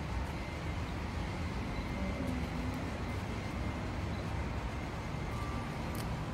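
Steady outdoor background noise: a low rumble with a faint hiss above it, and no single event standing out.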